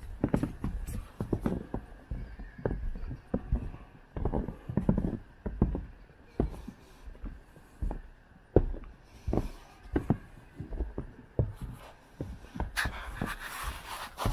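Footsteps in snow on a snow-covered boardwalk, one step about every half second. A louder rush of hiss comes in near the end.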